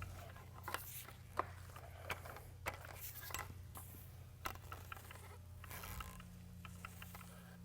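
Paint roller rolling wet water-based polyurethane topcoat onto a concrete floor, a faint sticky crackling with scattered small clicks, over a steady low hum.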